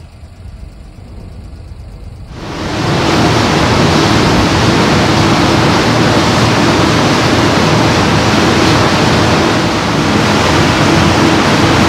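Loud, steady rush of wind and churning wake from a passenger ferry running at speed, with a steady low hum underneath. It starts abruptly about two and a half seconds in, after quieter dockside sound.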